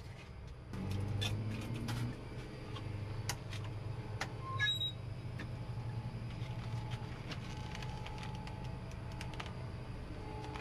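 Clicks and knocks as a locker door on an egg vending machine is opened and a plastic egg carton is taken out and handled. A steady low hum runs underneath.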